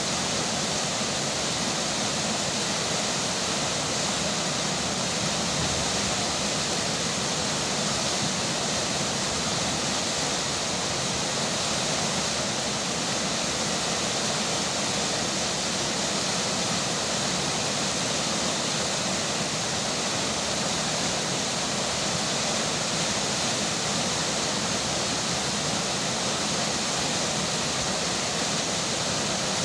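River water flowing steadily under falling rain, an even, unbroken rushing hiss.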